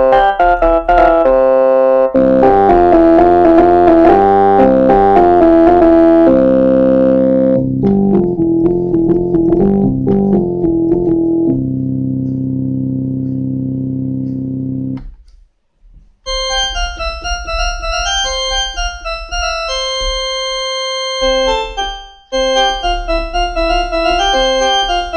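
Kawai FS660 portable keyboard playing its built-in preset voices. Quick notes give way to held chords on one voice for about fifteen seconds. After a brief break, a melody of short, bright notes that each die away plays on the next preset.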